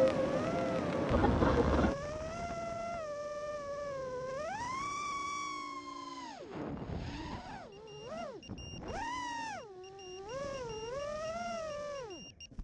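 FPV quadcopter's four 2306 2450kv brushless motors with 5-inch tri-blade props whining, the pitch swooping up and down as the throttle is punched and chopped through flips and turns. A louder rush of air noise comes in the first two seconds, and the sound cuts off just before the end.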